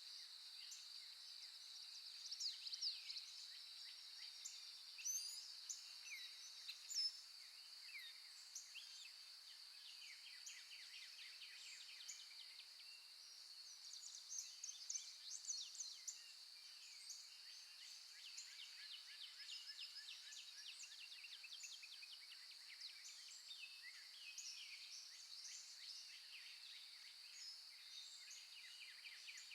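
Faint recorded birdsong: many wild birds giving short chirps and quick trills throughout, over a steady high-pitched drone.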